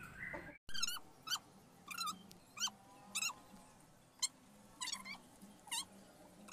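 Young cat mewing repeatedly from a rooftop: about ten short, high-pitched mews, each bending up and down in pitch.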